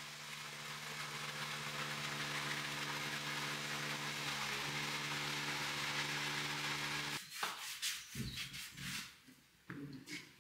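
A motor-driven machine runs steadily, a hum with a hiss over it, and cuts off abruptly about seven seconds in. After that come irregular knocks and rustling handling noises.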